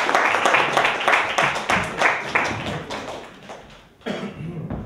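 Audience applauding, the clapping dying away over about three seconds.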